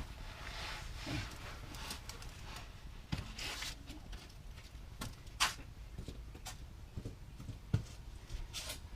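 Scattered light clicks, taps and knocks of hand tools being handled under the car, with a sharper click about five seconds in and a low thud near the end.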